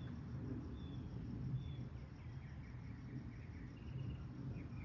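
Small birds chirping faintly: short high chirps about once a second, with a brief twittering run in the second half, over a steady low background rumble.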